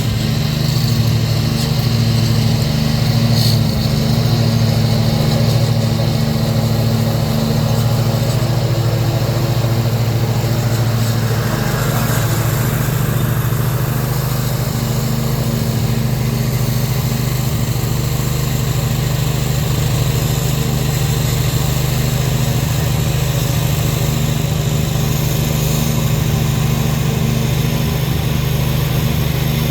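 Briggs & Stratton Intek V-twin engine on a zero-turn mower running steadily after its oil pan gasket repair, its note shifting slightly about eight to twelve seconds in.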